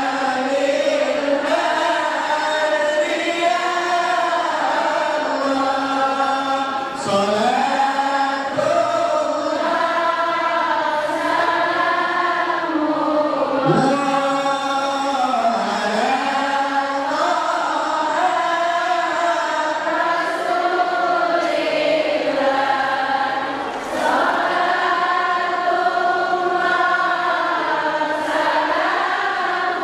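Islamic devotional chant sung by a group of voices in unison, led by a man singing into a hand-held microphone over the PA, in a slow melody of long held notes.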